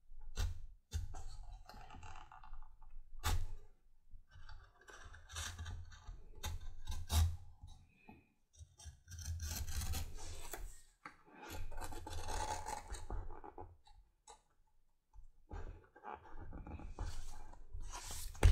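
Trim knife slicing through leather, cutting away the excess lining around the edge of a glued-up holster, in a series of cuts a second or two long with short pauses between them.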